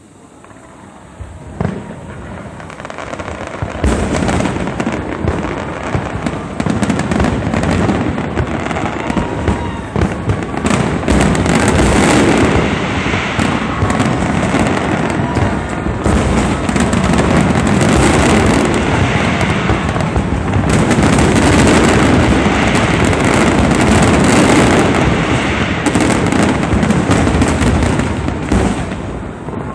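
A large fireworks display going off in dense rapid volleys of crackling, popping and booming shell bursts, starting about two seconds in and staying loud and continuous, easing slightly near the end.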